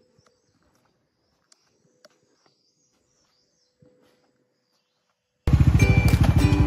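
Faint birds chirping with a few soft clicks, then loud background music with a steady beat starts abruptly about five and a half seconds in.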